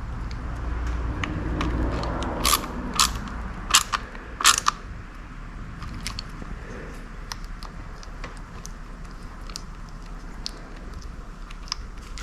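Hand work on small parts: four loud sharp clicks in quick succession a few seconds in, then scattered lighter ticks and clicks, over a low rumble that fades early on.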